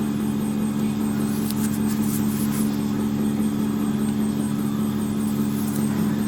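Steady motor hum from a cavitation body-slimming machine running, held at an even pitch.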